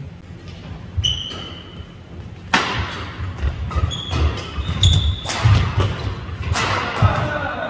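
Badminton doubles rally: a string of sharp racket-on-shuttlecock hits in quick succession, with short squeaks of court shoes and footfalls on the wooden floor, echoing in a large hall.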